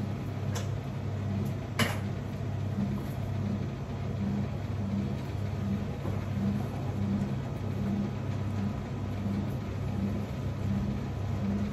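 Steady low mechanical hum that pulses a little under twice a second, with two light clicks in the first two seconds, the second being the loudest sound.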